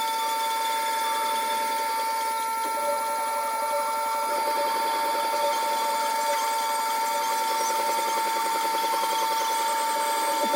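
Güde wet grinder running with a steady high-pitched whine.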